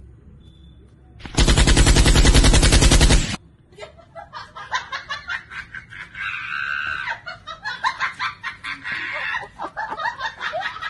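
Loud burst of rapid automatic gunfire starting about a second in and lasting about two seconds. Quieter, rapid clicking and rattling follows.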